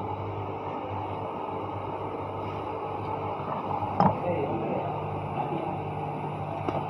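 An engine running steadily with a low hum, with a sharp knock about four seconds in and a lighter click near the end.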